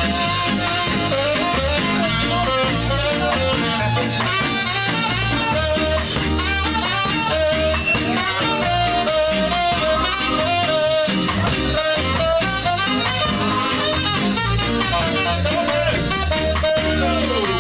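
Ska band playing live: saxophones over electric guitar and a drum kit, at a steady, full level.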